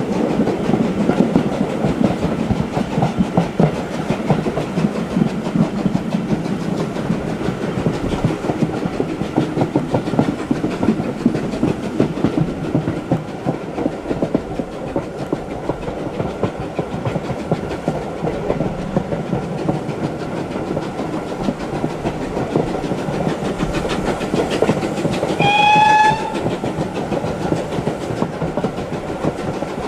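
Steam-hauled train running, a steady rumble with the clatter of wheels over rail joints. About 25 seconds in, the steam locomotive gives one short whistle, rising slightly in pitch.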